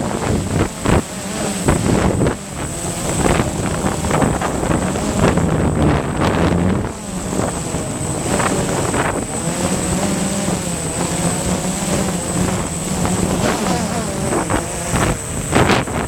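DJI Phantom 1 quadcopter's motors and propellers buzzing, their pitch wavering up and down as the drone fights strong wind gusts, with heavy wind noise on the microphone.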